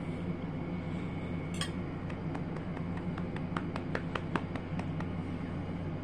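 A metal fork clinking and tapping against a ceramic bowl while picking up watermelon: one scrape about a second and a half in, then a quick run of light clicks, about four a second, that stops near the end. A steady low hum runs underneath.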